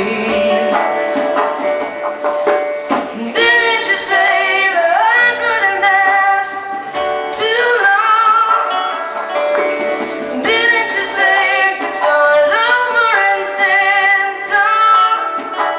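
A woman singing a slow song live, holding long wavering notes, as she accompanies herself on a keyboard.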